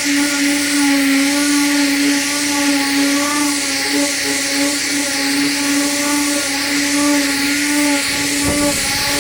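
A motor running steadily: a constant pitched hum with an even hiss over it, and a short low rumble near the end.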